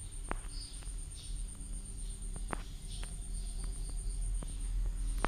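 Faint background noise: a steady, rapid, high-pitched pulsing chirp over a low hum, with a few soft clicks scattered through it.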